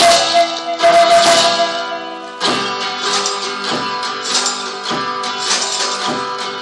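One-man band playing: strummed guitar with a held melody note in the first second or so, then a steady beat of about two strokes a second under the guitar.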